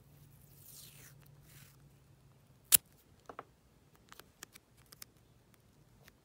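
Grey tape being handled and torn over a paper journal page: two short rasping rips in the first two seconds, a sharp click a little later, then several light clicks and taps of fingers on paper and tape.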